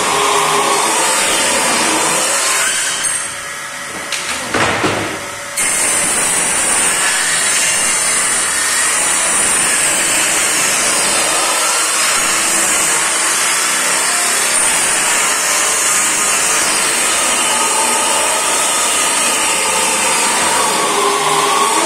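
Circular table saw running with a steady high whine as board panels are pushed through the blade. The noise drops away briefly about three seconds in, then comes back as before.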